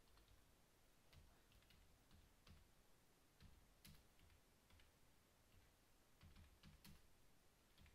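Faint, irregular keystrokes on a computer keyboard as a search phrase is typed, with a quicker run of taps near the end.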